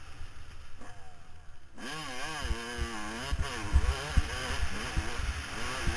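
Motocross dirt bike engine running as the bike is ridden, quieter at first, then louder from about two seconds in, its pitch rising and falling repeatedly with the throttle. Low thumps sound underneath.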